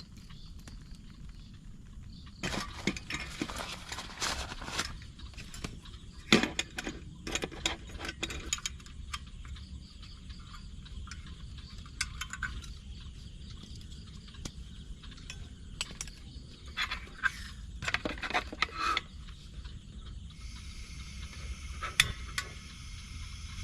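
Clinks and knocks of cookware and utensils being handled. A steady sizzle, as of food frying, starts near the end.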